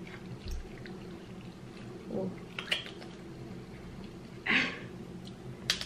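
Cooked king crab claw shell being cracked and pulled apart by hand: a few sharp cracks spaced a couple of seconds apart, with a brief hiss a little past the middle.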